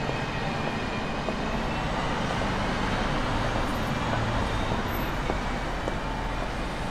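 Street traffic noise: a steady wash of passing road vehicles, swelling a little around the middle.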